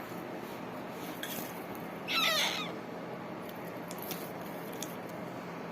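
A cat meowing once, a single short call about two seconds in.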